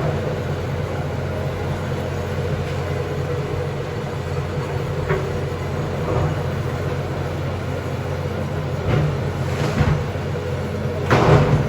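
John Deere backhoe's diesel engine running steadily, with a few brief louder bursts, the strongest near the end.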